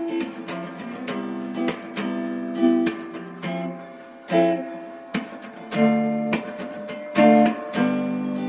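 Background music: acoustic guitar, strummed and plucked chords.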